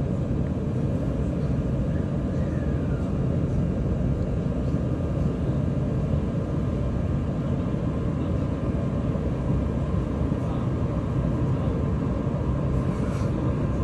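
JR East E531 series electric commuter train running at speed, heard inside the passenger car: a steady low rumble of wheels on rail with a faint steady whine above it.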